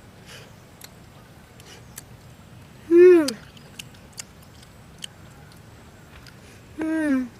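A boy's two short hummed "mm" sounds while eating wild berries, each falling in pitch, the first louder, about four seconds apart. Faint clicks of chewing and handling the fruit come between them.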